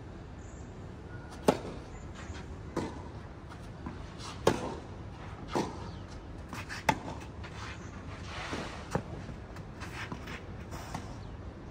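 Tennis rally: a ball struck back and forth by rackets, six or seven sharp hits spaced one to two seconds apart, a few softer knocks between them.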